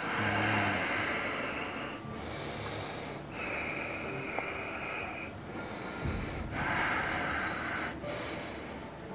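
A man in trance breathing heavily: three long, noisy breaths of about two seconds each, with short pauses between them.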